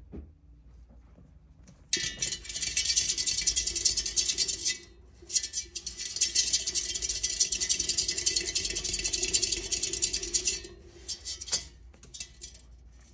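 Pink plastic exercise wheel rattling fast and steadily under a prairie dog's running feet. It starts about two seconds in, breaks off briefly near five seconds, and stops near the end, leaving a few scattered clicks.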